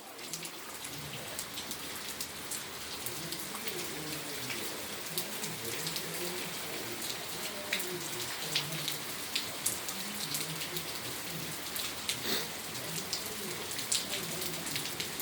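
Hail falling with rain: a steady patter broken by many sharp ticks of hailstones striking hard surfaces.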